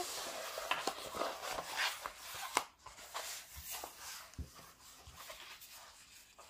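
Rustling and crinkling of a diamond painting canvas and its printed protective cover sheet as it is unrolled and pressed flat by hand, loudest in the first three seconds, then quieter rubbing with a few light taps.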